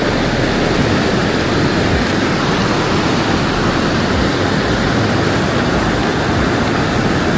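Mountain river rushing over rocks, a loud, steady wash of water noise.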